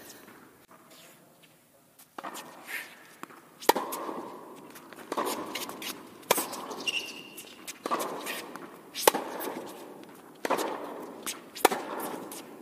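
Tennis rally: a ball struck back and forth by racket strings and bouncing on the hard court, one sharp pock about every one to one and a half seconds, each echoing in a large indoor hall. A short high shoe squeak comes about seven seconds in.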